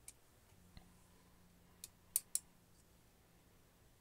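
A handful of small, sharp clicks and taps from the metal cassette-holder assembly of a Tascam 122mkII cassette deck as it is handled and loosened for pivoting, the loudest a quick pair about two seconds in.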